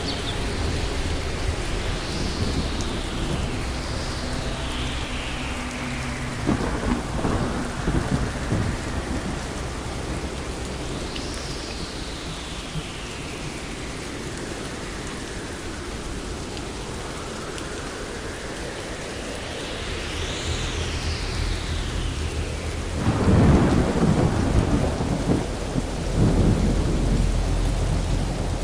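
Thunderstorm: steady rain hiss with rolling thunder, one rumble about seven seconds in and a louder, longer one starting about twenty-three seconds in.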